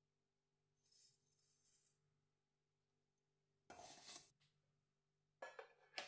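Dry loose-leaf black tea poured from a ceramic scoop into a metal tea-infuser basket, with a soft rustle about a second in and a louder rattling pour just before the four-second mark. Near the end come a few short knocks and clinks as the tea tin is handled.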